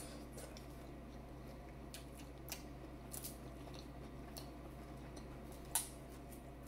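Faint scattered clicks and cracks of seafood shells being handled and peeled by hand, the sharpest about six seconds in, over a steady low hum.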